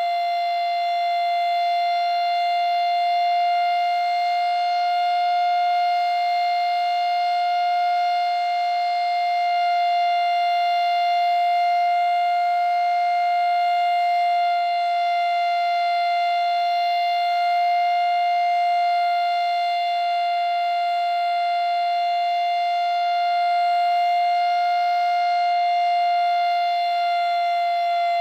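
Federal Signal Model 5 rotating warning siren sounding its steady alert tone: one held pitch that swells and fades a little in loudness as the rotating head turns. The person recording says it sounds a little sick and needs new bearings.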